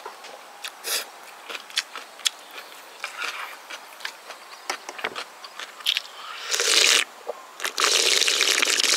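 Close-miked eating sounds: small clicks and chewing, then near the end two long, loud slurps of gukbap broth drunk straight from the pan.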